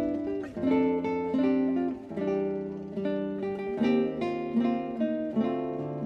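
Background music: plucked acoustic guitar playing a melody over a sustained bass note.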